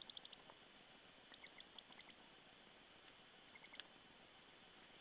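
Faint, short, high-pitched bird chirps in small quick clusters, three times, over a low steady hiss.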